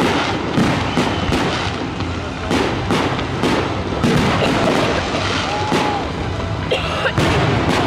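Aerial fireworks shells bursting in quick, irregular succession, several bangs a second over continuous crackling.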